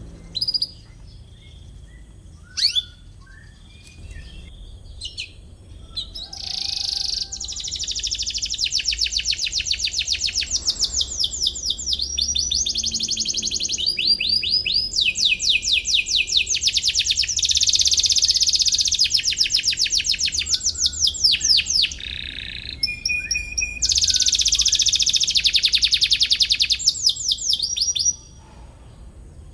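Domestic canary singing: a few single chirps, then from about six seconds a long run of fast rolling trills, phrase after phrase, that stops abruptly near the end.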